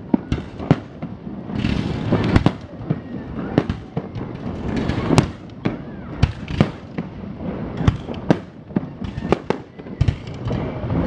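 Aerial fireworks bursting: many sharp bangs at irregular intervals, several a second at times, over a continuous rumble from the bursts.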